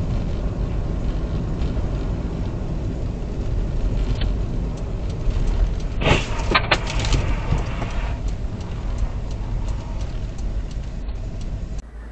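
Car driving on a snowy road, heard inside the cabin: a steady low rumble of engine and tyres, with a cluster of sharp knocks about six seconds in.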